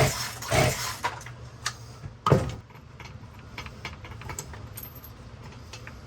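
Poulan Pro 42 cc two-stroke chainsaw being pull-started: a last quick yank of the recoil starter cord about half a second in, the engine turning over without firing. Then a sharp clack about two seconds in, followed by light metallic clicks and taps as the saw is handled.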